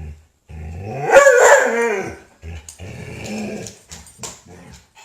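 Excited dog vocalizing: a loud, drawn-out growling call that rises and falls in pitch about a second in, followed by shorter broken growls and yips.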